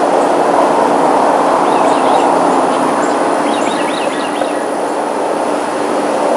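Aircraft passing overhead, a loud, steady engine noise, with a few short bird chirps about two seconds in and again around the middle.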